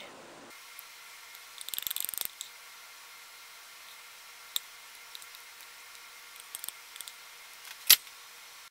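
A metal fork scraping and clicking against a glass mug and china plates as chocolate-dipped truffles are lifted out and set down: a scratchy run of clicks about two seconds in, a few light ticks, and one sharp clink near the end, over a faint steady hiss.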